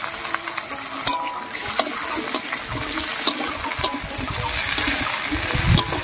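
Potato and pumpkin pieces sizzling in hot mustard oil in a kadai, with a spatula clicking and scraping against the pan as they are stirred several times.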